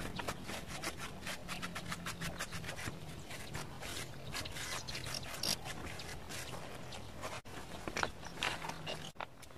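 Sponge dabbed and rubbed over the rough surface of a cement flower pot, a run of quick scratchy strokes several times a second. A faint low steady hum lies underneath.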